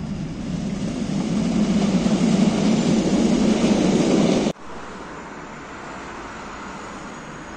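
Tram passing directly underneath, a rumble of wheels on rail that builds to its loudest and then cuts off abruptly about four and a half seconds in. After that, a quieter steady rumble of a tram approaching along a street track.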